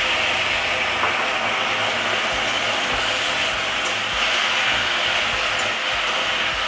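Water just added to hot mustard oil in a steel wok, sizzling with a loud, steady hiss around elephant apple slices, while a metal spatula stirs through them.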